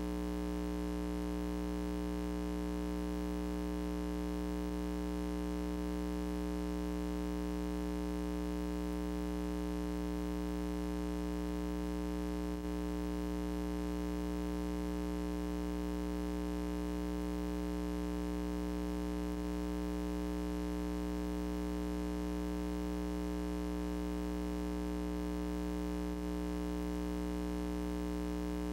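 Steady electrical mains hum with a stack of overtones, unchanging throughout, with no other sound over it.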